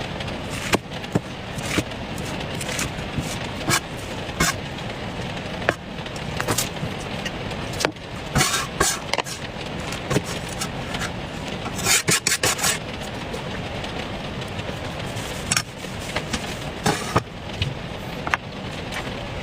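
Knife cutting and carving a watermelon: scattered sharp clicks and taps, with a quick run of taps about twelve seconds in, over steady background noise.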